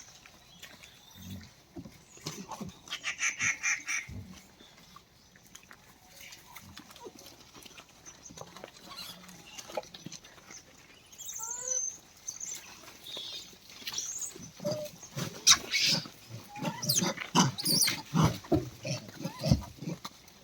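A group of monkeys feeding, with short calls and grunting mixed with scuffling and knocks. The sounds are busier and louder in the second half.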